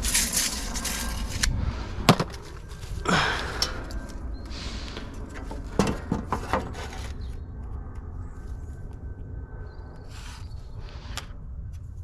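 A few sharp knocks and scraping of wooden boards being handled and set in place, as a plywood shelf is fitted.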